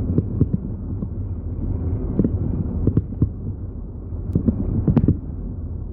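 Low steady rumble of a car cabin heard through a phone's microphone, with a few short soft knocks.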